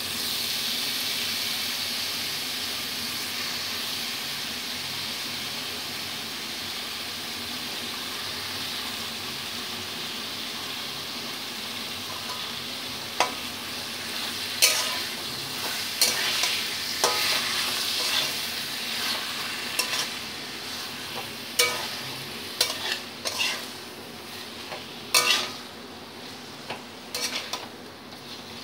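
Boiled, ground banana flower sizzling in hot oil in a metal wok, the hiss strongest at first and slowly dying down. From about halfway, a flat metal spatula stirs and scrapes the wok in sharp clanks and scrapes.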